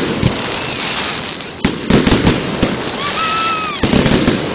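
Fireworks display: repeated sharp booms over dense crackling, with a short whistling tone that rises and falls about three seconds in.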